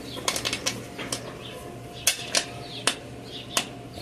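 About ten sharp, irregular clicks and taps from a bicycle tyre and inner tube being handled against the metal rim while the tube's valve is pushed into the rim's valve hole.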